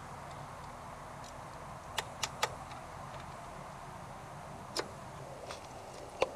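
A few light clicks from small bolts and the plastic rear cowl of a motorcycle being handled: three in quick succession about two seconds in, one near five seconds and one near the end, over a steady outdoor hiss.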